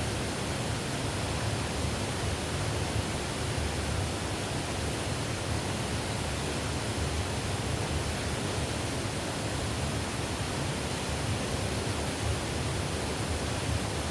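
Flowing water making a steady, even rush with no breaks.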